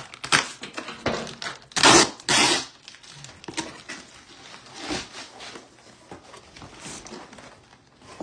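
Wrapping paper and a cardboard gift box being torn and handled as a present is unwrapped: bursts of rustling and tearing, loudest around two seconds in, then lighter rustling as the box is opened.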